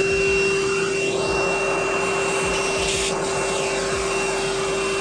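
Vacuum cleaner running steadily, sucking dirt out of a window frame: a constant motor whine over a rushing hiss of air.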